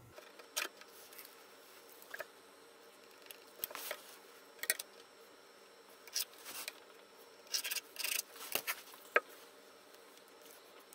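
Quiet, irregular scratching, rubbing and light tapping: a marker drawing lines on a snowboard's surface, with a ruler and a wooden block being picked up, set down and held in place.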